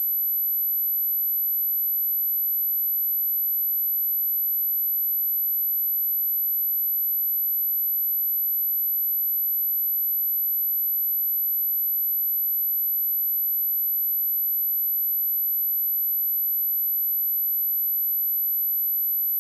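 A pure sine-wave test tone at 11948 Hz: one steady, very high-pitched whistle held at constant pitch and level.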